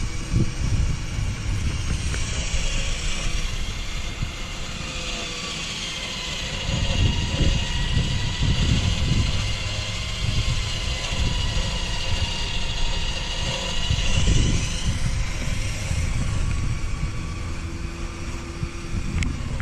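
Smittybilt X20 electric winch pulling its synthetic rope under load through a snatch block, a steady whine with low rumbles coming and going underneath.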